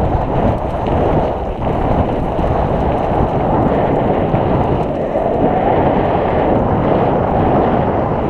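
Steady, loud wind buffeting on the microphone of a mountain biker's action camera during a fast downhill ride, mixed with the rolling noise of the bike.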